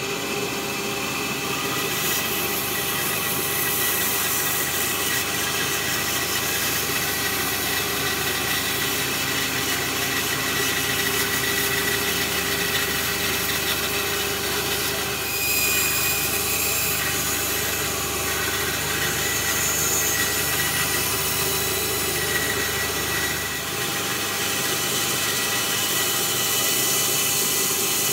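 Bandsaw with a narrow blade running steadily while it cuts a curved line through a small ash log: an even motor and blade hum with the hiss of the blade in the wood.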